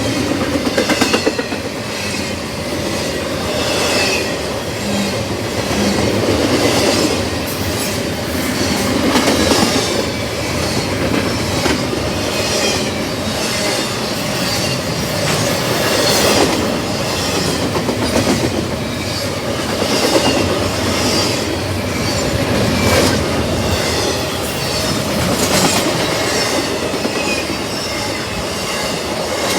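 Double-stack freight cars of a CSX intermodal train rolling past slowly, wheels clacking over the rail joints in a steady rhythm, with short high-pitched wheel squeals now and then.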